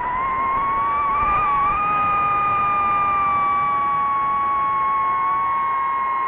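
FPV quadcopter's brushless motors whining at several close pitches, rising over the first second and a half, then holding steady.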